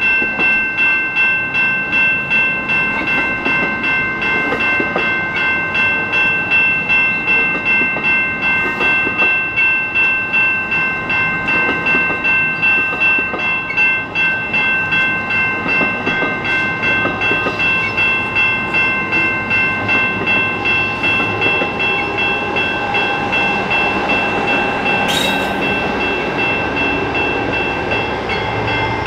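A commuter train at a station, with a bell ringing steadily a little more than once a second over the rumble of the train. In the last stretch a whine comes up, and there is one sharp clank near the end.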